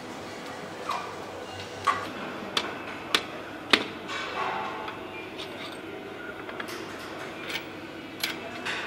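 Sharp metallic clicks and knocks as parts and tools are handled on an aluminium V8 engine block during assembly, heard over a steady factory hum. About eight separate strikes, several in quick succession in the first four seconds and a few more near the end.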